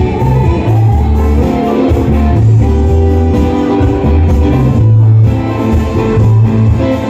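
Live band playing amplified: electric bass, guitar, keyboards and drums, with a strong bass line.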